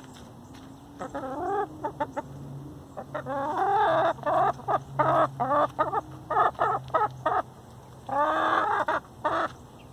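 Chickens clucking close by: a string of short calls, quickening into a rapid run in the middle, with a steady low hum underneath.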